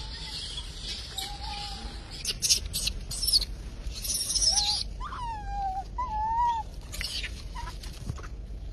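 Monkeys crying: several short whistle-like calls that rise and then fall in pitch, with a run of shrill, high-pitched cries in the middle.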